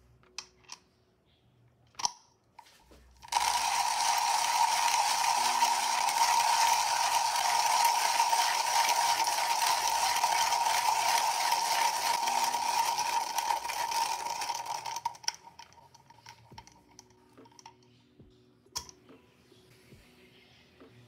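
Comandante C40 hand burr grinder grinding coffee beans: a steady crunching grind that starts a few seconds in and stops about three quarters of the way through, with a few light clicks and taps before and after.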